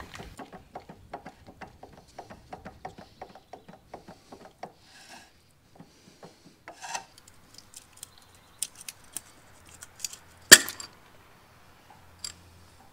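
Small metal parts of a forklift wheel hub clicking and scraping as they are worked by hand to free the seal plate: a quick run of light clicks for the first few seconds, then scattered taps and one sharp metallic click late on.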